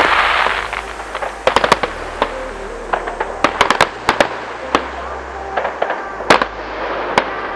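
Aerial fireworks bursting: a string of sharp bangs and cracks at irregular intervals, with a short hissing rush at the very start. Electronic music with a steady bass plays underneath.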